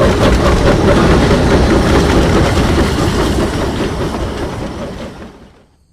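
A train running on its track, a dense rumbling clatter that stays loud and then fades out over the last second or so.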